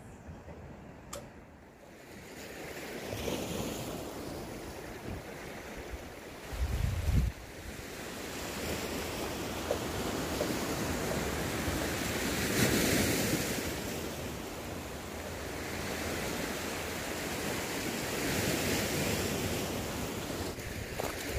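Sea surf washing against the shore in slow swells, with wind on the microphone. A brief low rumble about seven seconds in.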